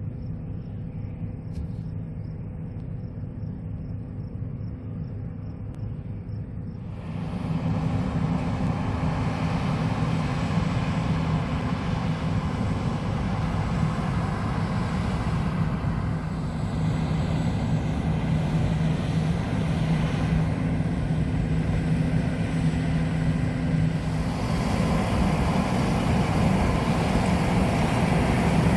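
John Deere S780 combine harvester running with a steady deep engine drone. About seven seconds in it gets louder and a rushing noise joins it, growing brighter again near the end.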